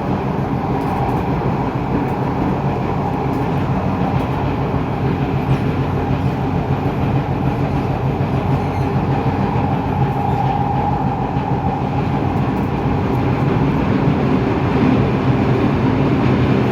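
Kawasaki Nippon Sharyo C751B metro train running at speed, heard inside the car: a steady loud rumble of wheels on rail with a constant whining tone over it.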